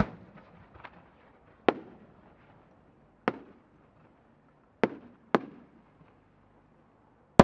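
Fireworks bangs from a 10-gou (shakudama) aerial shell rising with small bursting effects and then breaking. Sharp reports come a second or so apart, each with an echoing tail: one at the start, a faint one, then four more. The loudest boom comes at the very end.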